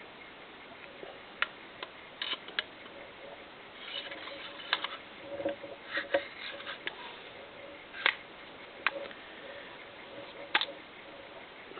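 Metal parts of a Colt M4 .22LR rifle clicking and scraping, irregularly, as the bolt carrier is slid into the upper receiver: about a dozen sharp clicks, with a cluster of short rattles in the middle.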